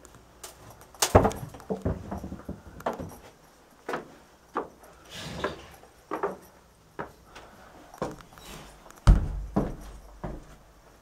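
Footsteps and scattered knocks of someone moving about inside a boat's cabin, with two heavier thumps, one about a second in and one near the end.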